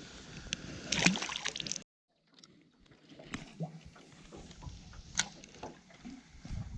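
Water sloshing against a small fishing boat, with scattered light knocks and clicks. The sound cuts out completely for about half a second about two seconds in, then comes back quieter.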